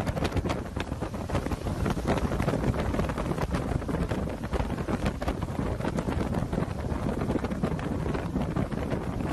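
Strong storm wind blasting the microphone: a dense, rumbling rush with many short crackling hits.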